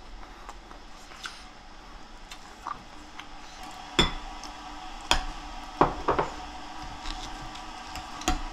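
Ceramic bowls and metal chopsticks and spoon clinking and knocking at the table during a meal: scattered sharp knocks, the loudest about four seconds in, then several more close together around five to six seconds and one near the end.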